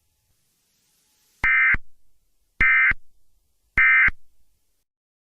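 Emergency Alert System end-of-message (EOM) code: three short bursts of digital data tones, about a second apart, signalling the end of the alert.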